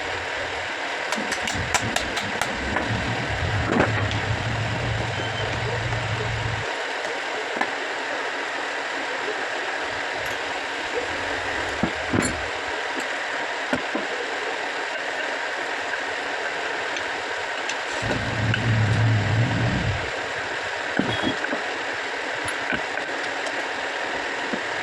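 Electric water-pump motor switched on and running with a low hum for about six seconds, then again for about two seconds later on, over a steady hiss and scattered sharp clicks from handling.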